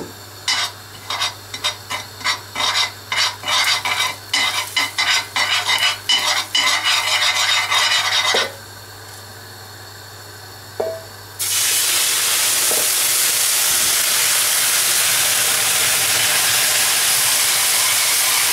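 A metal utensil scraping and stirring melting sugar in a frying pan, in quick repeated strokes for about eight seconds. After a short pause, water goes into the hot caramel and sets off a loud, steady sizzling hiss as it turns into caramel syrup.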